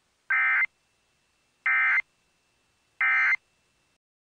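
Emergency Alert System end-of-message code: three short bursts of SAME digital data tones, just over a second apart, marking the close of the spoken alert.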